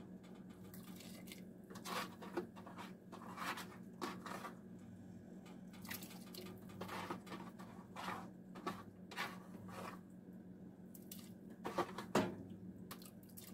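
Shredded cooked chicken being dropped by hand into a stockpot of broth: soft wet squishes and drips with scattered light clicks and knocks, the loudest near the end, over a steady low hum.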